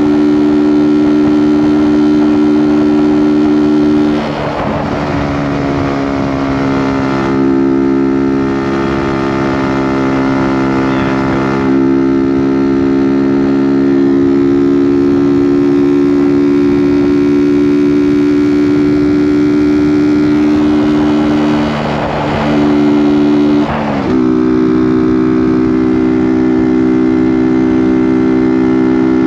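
2019 Kawasaki Z125's 125cc single-cylinder four-stroke engine through an aftermarket Delkevic exhaust, running steadily on the move. The note dips briefly about four seconds in and again around 22 seconds, and steps down sharply in pitch about 24 seconds in.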